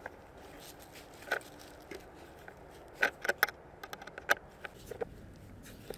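Small sharp metallic clicks and taps from a hand screwdriver working a screw in a steel corner bracket on a wooden board: one about a second in, a quick run of three around the middle, and another sharp one a second later.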